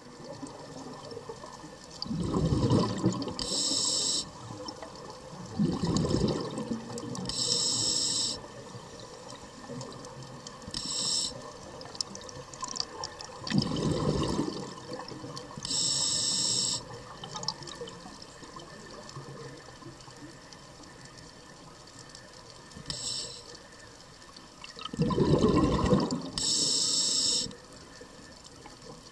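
Scuba diver breathing through an open-circuit regulator. Each exhaled burst of bubbles gurgles for about a second, and each inhalation hisses through the regulator, a breath every few seconds with a longer quiet gap past the middle.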